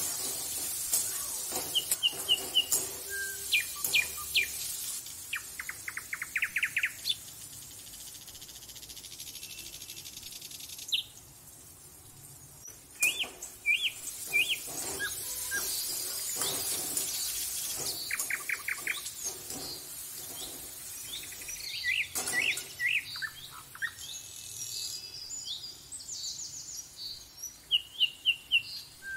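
Small birds chirping and trilling, with repeated short high calls and quick rattling trills that come and go. Underneath is a steady high hiss that stops briefly about eleven seconds in.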